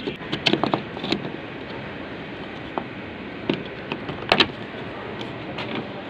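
Plastic replacement outer door handle knocking and clicking against a Suzuki Carry's steel door as it is worked into the handle opening: a quick run of small clicks in the first second, scattered knocks after, and one louder knock about four seconds in.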